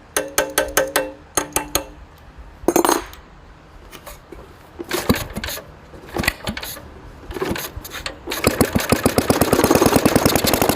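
Briggs & Stratton single-cylinder flathead engine on a water pump being started. It begins with a short run of metallic clicks and ringing tones and a few scattered pops and coughs, then catches about eight seconds in and runs with a rapid, even firing beat. The owner had put its refusal to run down to a clogged carburetor.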